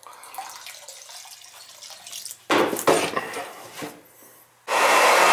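Heating oil splashing and trickling as a transfer pump moves it from the old tank into a barrel, with loud clattering about two and a half seconds in. Near the end a loud steady whirring noise starts.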